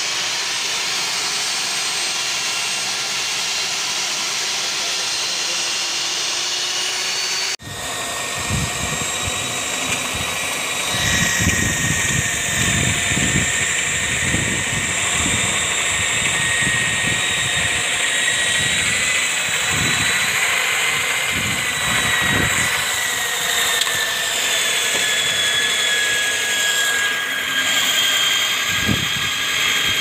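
Electric diamond core drill motor running at speed, a steady high whine as the water-fed core bit cuts into concrete. It breaks off abruptly about a quarter of the way in and picks straight up again, now with uneven low rumbling under the whine, and its pitch sags slightly in the second half.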